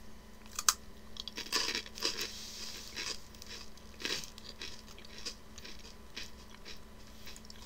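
Crisp crunching and chewing of nori-wrapped rice crackers (nori maki arare), a scatter of short, sharp crunches, with the snack bag crinkling as a hand reaches into it.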